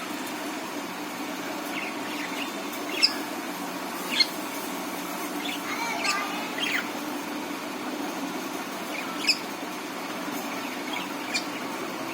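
Budgerigars giving short, sharp chirps scattered every second or two, over a steady low background hum.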